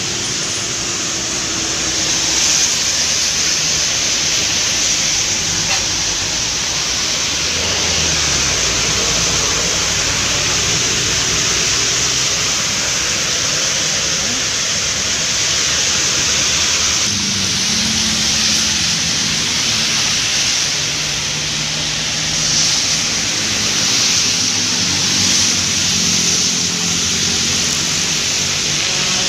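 Steady hiss of heavy rain and of tyres spraying through water on a wet road as traffic passes, with the low hum of bus and car engines going by; a deeper engine hum comes in just past halfway.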